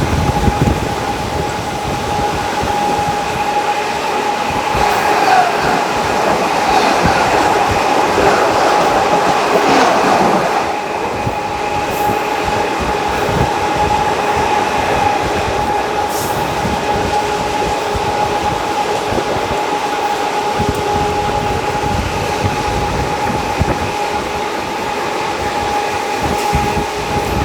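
Indian Railways ICF passenger coach running on the track, heard from a window seat. Wheels click over the rail joints under a steady whine, with a louder rushing stretch from about five to eleven seconds in.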